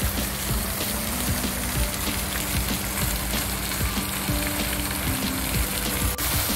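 Fountain water spraying from a sculpture's jets and splashing into its basin: a steady hissing rush of falling water.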